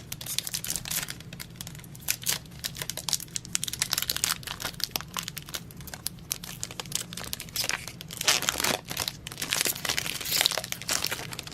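Baseball trading cards being handled and flipped through, with crinkling of the pack wrapper: scattered rustles and soft clicks, busier for a few seconds near the end.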